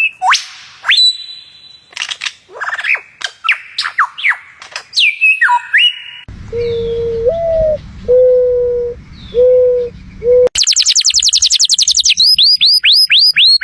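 Different bird calls spliced one after another. First come assorted whistles and chirps. About six seconds in there are several low hoots over a rough background. Near the end a fast high trill gives way to a string of quick, repeated falling whistles.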